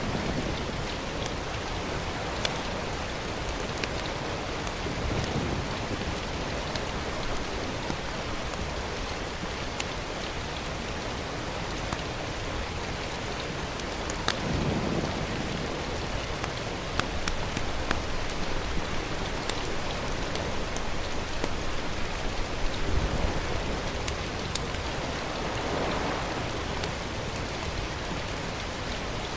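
Food frying in a hot pan: a steady sizzle with scattered small pops and crackles.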